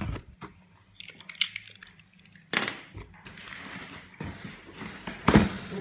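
Handling noise from a cardboard parcel being moved about: scattered knocks and rustling, with one loud knock near the end.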